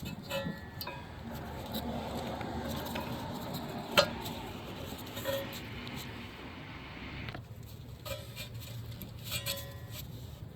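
Metal brake parts and hand tools clinking and clattering during rear brake work, some clinks ringing briefly. There is one sharp metallic knock about four seconds in.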